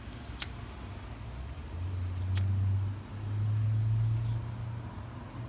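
A lighter being struck twice, two sharp clicks about two seconds apart, as it is lit to shrink heat-shrink tubing. Underneath is a low rumble of wind on the microphone that swells twice in the middle.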